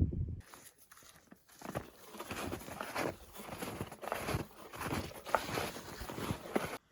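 Snowshoe footsteps crunching in snow, about two steps a second.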